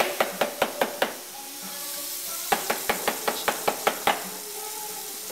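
Knife chopping on a cutting board in two quick runs of about five strokes a second, over the steady sizzle of food frying in a pan.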